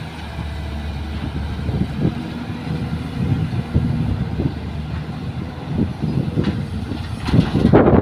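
Hydraulic excavator's diesel engine running under load, rising and falling unevenly as it works and swings a loaded bucket of soil toward a dump truck. Wind buffets the microphone near the end.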